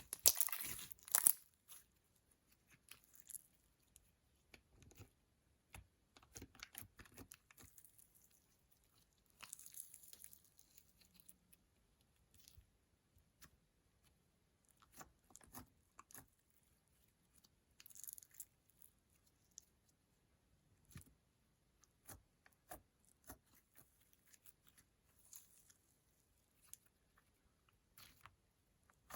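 Slime being mixed and squished: scattered sticky clicks and crackles, with a louder run of crackling about a second in and short crackly patches around ten and eighteen seconds in.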